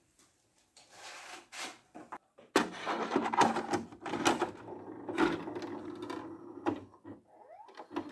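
VHS cassette handled and pushed into the slot of an Alba VHS video recorder: a sharp click as it goes in, then the deck's loading mechanism clunking and whirring as it draws the tape in.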